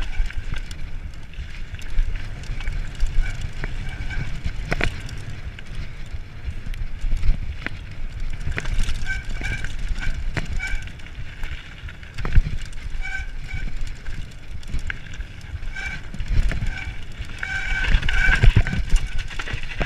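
Mountain bike riding fast down a dry dirt and gravel trail: a continuous low rumble of tyres on the surface, with frequent sharp clicks and rattles from the bike over bumps and stones.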